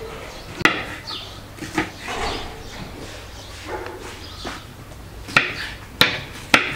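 Knife cutting hot white peppers: a few sharp clicks and taps, loudest and closest together near the end. An animal calls now and then in the background.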